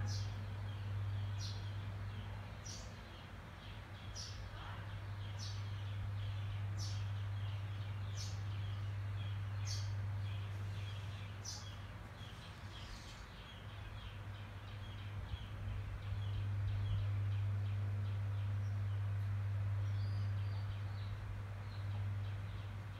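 A bird repeats a short high call about every second and a half, fading out a little past the middle, over faint rapid chirping and a steady low hum.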